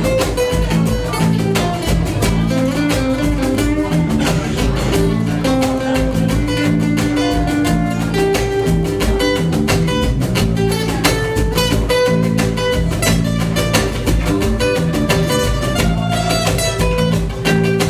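A live acoustic band playing an instrumental passage, led by plucked acoustic guitar, with no singing.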